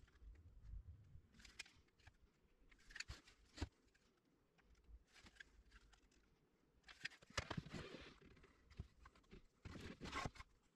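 Faint, scattered handling noises: short scrapes and light clicks every second or two, with a longer scraping cluster about seven seconds in.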